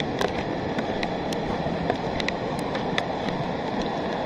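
Steady rushing of a muddy rain-fed flood flowing down a volcanic lahar channel, the water carrying old lahar sediment, with scattered sharp ticks throughout.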